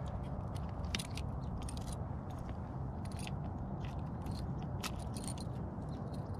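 Irregular small metallic clicks and scrapes of fishing pliers working a blade bait's hooks out of a bass's mouth, over a steady low rumble.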